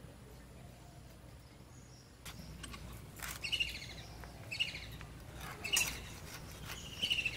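Rasping scrapes and clicks of pomfret being cut on a boti blade, starting about two seconds in, with birds chirping repeatedly over them.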